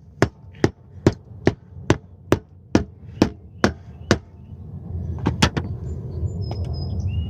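Hammer striking old tar and roofing material around a gutter outlet, about ten quick, even blows at a little over two a second that stop about four seconds in, then two more strikes close together. A low rumble of a passing vehicle builds near the end.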